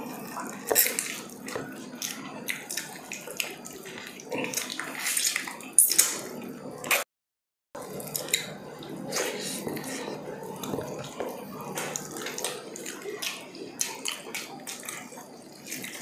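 Close, wet eating sounds of pork ribs in a thick caldereta sauce being eaten by hand: chewing, lip smacking and sticky fingers, a dense run of short clicks and squelches. The sound cuts out briefly about seven seconds in.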